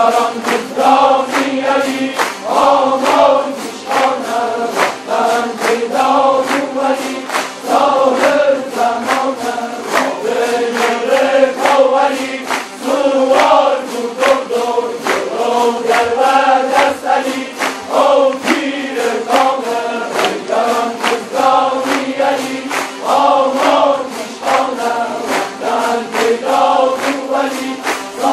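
A large ensemble of Kurdish tanburs, long-necked lutes, strummed together in a steady rhythm of about three strokes a second, with a group of voices chanting along.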